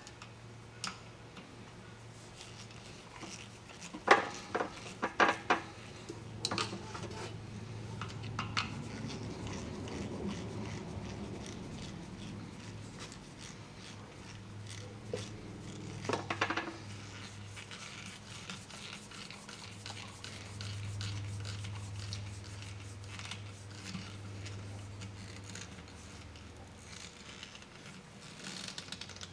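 Hand tools and small metal parts clicking and clinking during reassembly, in scattered clusters about four to six seconds in and again around sixteen seconds, over a faint steady low hum.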